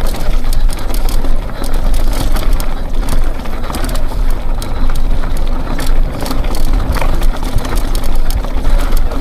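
Mountain bike riding fast over rough ground: wind rumbling on the microphone under a steady rush of tyre noise, with frequent rattles and knocks from the bike.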